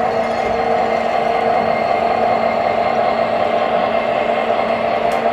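O scale model BNSF diesel locomotive running along its track, giving a steady engine-like drone with a whir.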